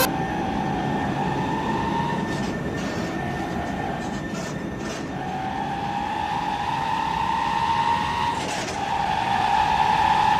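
Tunggal Jaya bus close by: a long, steady high tone that wavers slightly in pitch and breaks off briefly a few times, over a low engine rumble.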